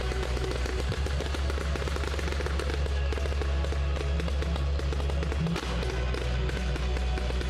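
Fireworks going off in a dense, fast crackle over loud music with a heavy, steady bass.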